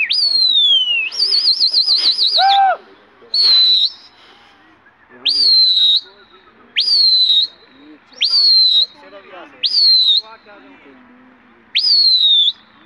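A pigeon flier's loud whistling to the flock: a string of piercing whistles, each shooting up and then sliding down, repeated every second and a half or so, with one longer warbling trill about a second in.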